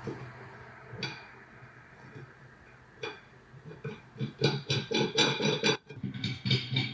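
Rapid clicking and rattling of a rubber-capped foot's threaded bolt being turned by hand into the white lower ring tube of a balance ball chair stand. A few separate clicks come first, then a dense run of clicks for the last two and a half seconds, over a low steady hum.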